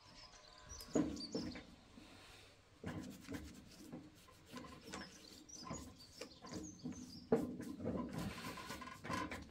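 A cloth rag rubbing and wiping an oily aluminium engine part, with several knocks and clicks as the part is handled and turned on a wooden bench, the loudest about a second in and again near the end. Birds chirp now and then in the background.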